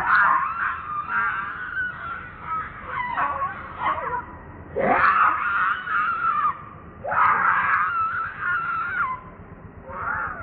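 Baby macaque crying for its mother: a run of about six high, wavering wails, several ending in a falling slide, with short pauses between them.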